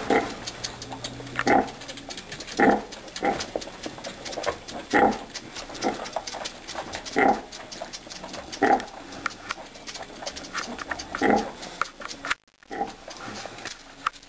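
Tamworth sow grunting in short, regular grunts every second or two while her piglets suckle: the rhythmic nursing grunts a sow gives during milk let-down. Faint quick clicking runs between the grunts, and the sound cuts out briefly near the end.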